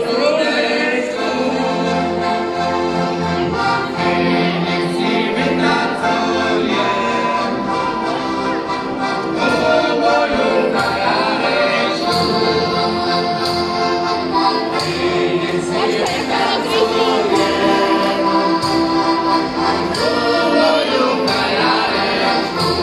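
Heligonkas (diatonic button accordions) and an accordion playing a folk tune together, with several men's voices singing along.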